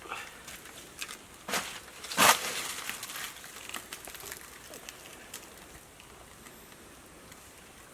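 Scattered crackling and rustling handling noises. The loudest is a short burst about two seconds in, and the noises thin out in the second half.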